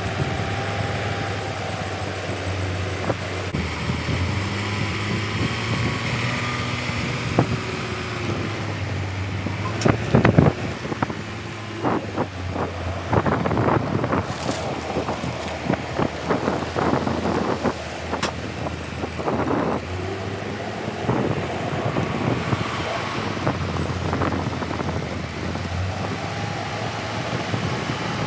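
Tractor diesel engine running steadily, revving up and down near the start and again near the end. In the middle it is joined by irregular rustling and knocking as a woven bulk bag is handled.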